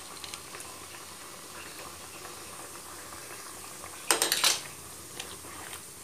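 Pav bhaji simmering at the boil in a non-stick kadai, with a soft steady bubbling and a few small ticks. About four seconds in there is a short clatter of a utensil against the pan.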